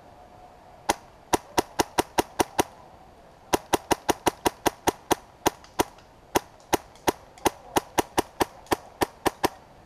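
Airsoft gun firing a string of rapid single shots, four to five a second: about eight starting a second in, a short pause, then a steady run of about twenty more.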